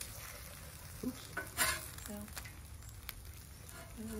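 Food sizzling on a Blackstone flat-top griddle, with a metal spatula or tongs scraping the steel cooktop a few times, the loudest scrape about a second and a half in.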